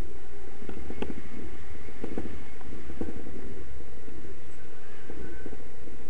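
Wind rushing over an action camera's microphone in flight on a tandem paraglider: a steady low rumble with irregular buffeting crackles.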